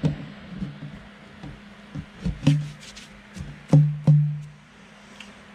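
Hands patting and pressing down packed substrate in the floor of a clear plastic enclosure: a few hollow thumps that ring briefly, the loudest two close together near the end.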